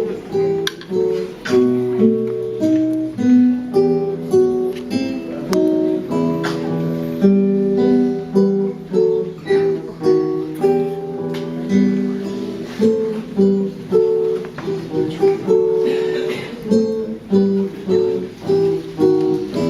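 Instrumental acoustic guitar music: plucked and strummed notes in a steady rhythm.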